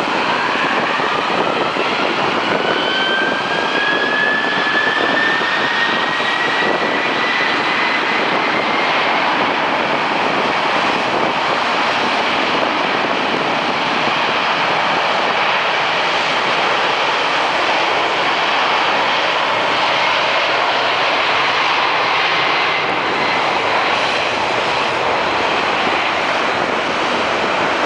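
Boeing 767-300's twin turbofan engines spooling up for takeoff: a whine climbs in pitch over the first several seconds, then steady, loud jet engine noise holds.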